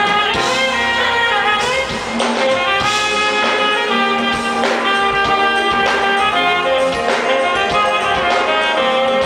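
Live smooth-jazz band: a saxophone plays held melody notes over electric bass, keyboards and a drum kit keeping a steady beat.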